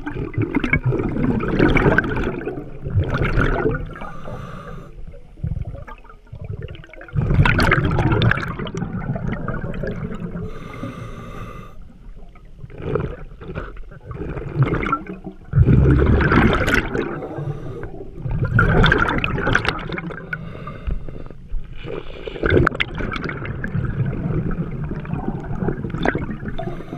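A scuba diver's regulator breathing underwater: exhaled air bursts out of the exhaust as rushing, gurgling bubbles every few seconds, with quieter stretches of inhaling in between.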